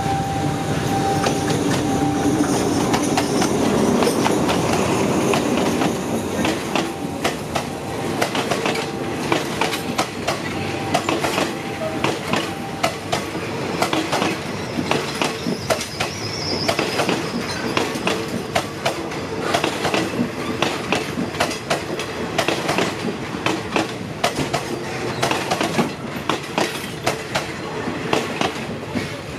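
Passenger train rolling over a level crossing with a steady rumble of running noise. From about six seconds in there is a quick, uneven string of wheel clicks as the carriages pass over the rail joints and crossing.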